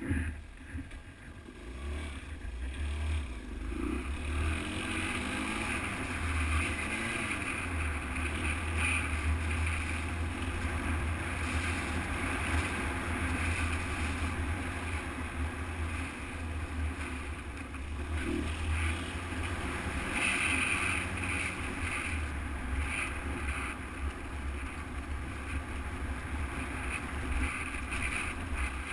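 Motorcycle engine running under way, with wind buffeting a helmet- or bike-mounted action camera's microphone as a steady low rumble. The engine pitch rises and falls briefly a few seconds in.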